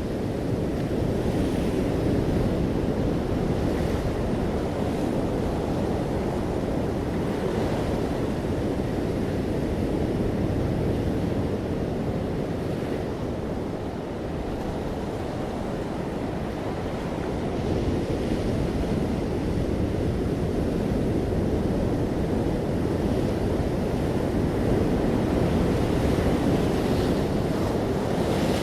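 Ocean waves breaking gently on a shore, a steady deep wash of surf that swells and eases slowly, with faint higher splashes now and then.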